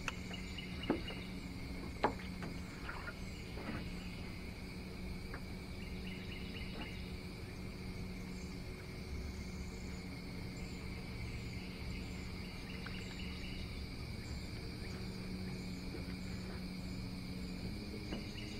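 Steady insect chorus of buzzing and chirping, with a low steady hum underneath and a few sharp clicks about one and two seconds in.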